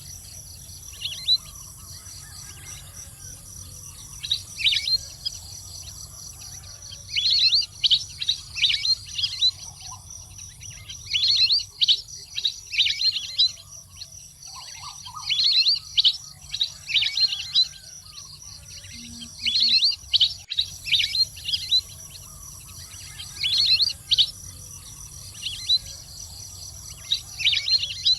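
Wild duck calls: bouts of short, high chirping whistles, each bout a second or two long, recurring every few seconds. A steady high insect drone runs underneath.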